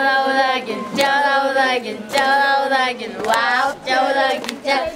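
A group of children singing a chant together, in short held phrases of about a second each.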